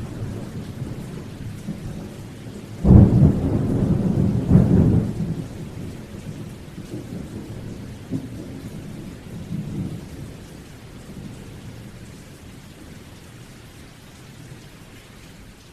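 Steady rain with a sudden thunderclap about three seconds in, swelling again a second and a half later, then rumbling away. Fainter rolls of thunder follow twice, and the storm fades toward the end.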